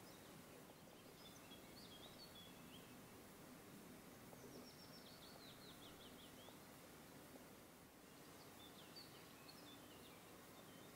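Near silence: faint steady hiss, with three short runs of faint, quick, high bird chirps, about one, four and a half, and nine seconds in.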